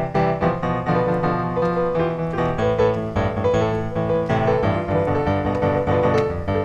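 Background piano music, a steady flow of notes with a repeating higher melody note.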